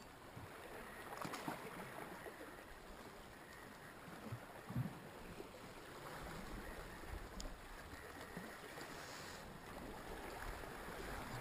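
Faint sea wash lapping against shore rocks, with a couple of soft knocks.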